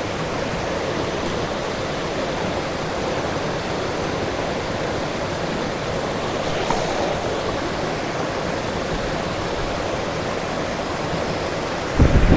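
Steady rush of fast-flowing water over stream rapids.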